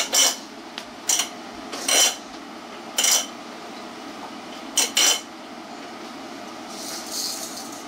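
Sharp clinks and clatters of hard objects knocking together: about one a second for the first three seconds, then a quick pair about five seconds in.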